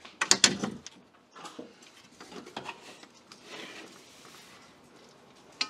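Knocks and light clatter from an aluminum-framed solar panel and its angle brackets being handled and fitted on a metal trailer roof. A few sharp knocks come about half a second in, then quieter scattered taps and scraping, and one more sharp click near the end.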